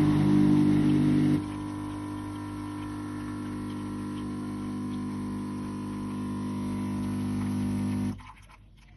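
Unicum Nero espresso vending machine brewing a double espresso: its pump hums steadily, louder for about the first second and a half, then settles to a lower steady hum. It cuts off suddenly about eight seconds in.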